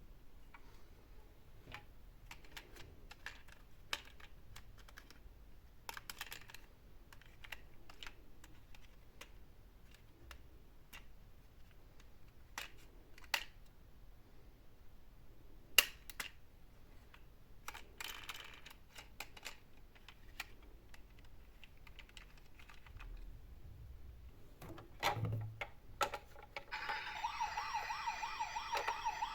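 Faint scattered plastic clicks and rattles of toy vehicles being handled. About 27 seconds in, a toy's electronic siren starts and warbles steadily.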